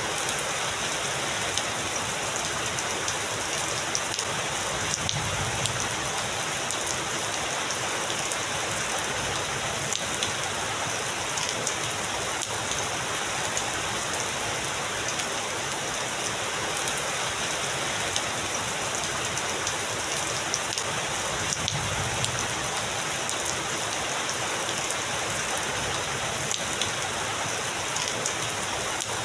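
Heavy rain falling steadily: a dense, even hiss with fine pattering of drops. Two faint low rumbles of distant thunder come through, about five seconds in and again about twenty-two seconds in.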